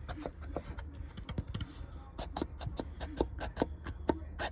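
Irregular light clicks and taps from handling parts on a jet ski engine, about a dozen small knocks over a low steady hum.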